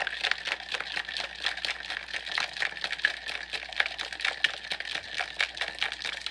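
Ice cubes rattling and clattering inside a stainless steel cobbler cocktail shaker shaken hard and fast, a dense unbroken run of clinks as the drink is chilled and mixed.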